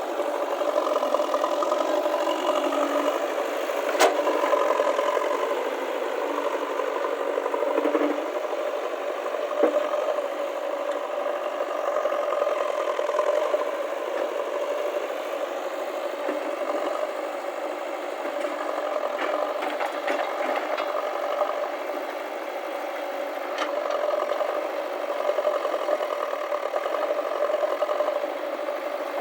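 JCB backhoe loader's diesel engine running steadily while it works, with a couple of sharp metallic knocks, the clearest about four seconds in.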